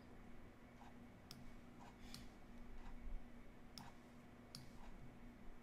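A handful of faint, sharp computer mouse clicks, irregularly spaced, over a faint steady hum.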